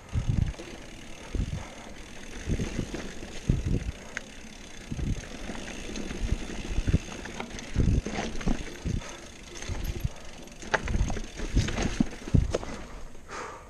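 XC hardtail mountain bike clattering over dirt and rock singletrack, with tyre and drivetrain noise throughout and frequent irregular knocks as the wheels and rigid frame hit rocks and bumps.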